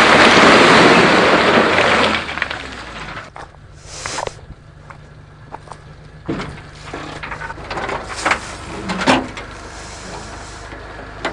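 A load of broken rock sliding off the tipped steel bed of a Suzuki Carry mini dump truck and crashing onto the ground for about two seconds, then trickling off and dying away. After that come a few scattered knocks and clicks over a low engine hum.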